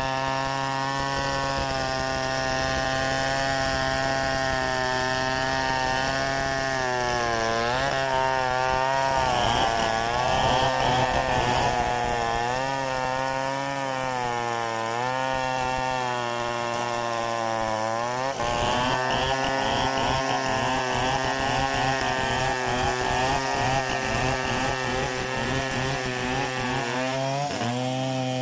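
Stihl 070 two-stroke chainsaw running at high revs while cutting mahogany. About a quarter of the way in, the engine note drops and wavers as the saw is loaded in the cut. It holds lower for most of the time, then picks back up near the end as the load comes off.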